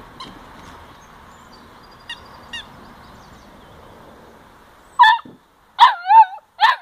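Puppy yipping: about five seconds in, a quick run of loud, high, short yelps, some with a wavering, bending pitch, after a stretch of only faint background noise.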